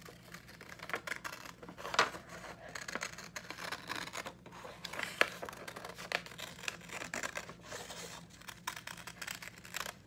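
Scissors cutting through a sheet of printer paper: a run of crisp snips and crackles with the paper rustling, the loudest snips about two and five seconds in.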